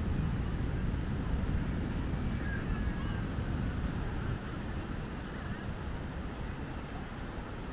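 Ocean surf washing in steadily on the beach, with wind rumbling on the microphone; it eases a little about halfway through.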